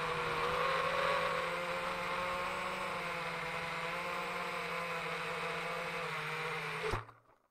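Brushless motors and three-blade propellers of a 5-inch FPV quadcopter (2306 1750kV motors, HQ 3x3x3 props) whining steadily at several pitches at once over a rush of prop wash. The sound cuts off suddenly near the end.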